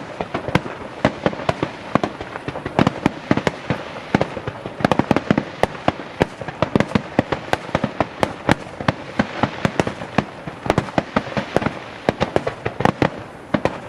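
Fireworks display going off in a dense, continuous barrage of sharp bangs, several a second, overlapping one another.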